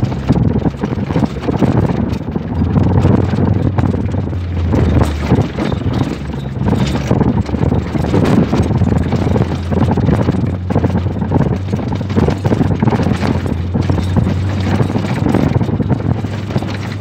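A 4x4 vehicle's engine running steadily while it drives over a rough dirt track, with frequent knocks and rattles from the vehicle jolting over bumps. Wind buffets the microphone.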